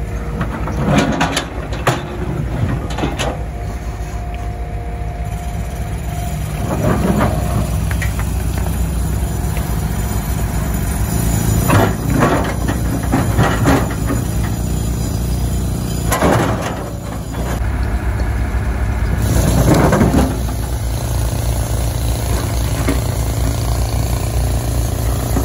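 Tata Hitachi Zaxis 120H excavator's diesel engine running steadily under hydraulic load, with a brief whine a few seconds in. Several bursts of clanking and scraping as the steel bucket grabs rock and heavy stones are set down into a steel tipper truck body.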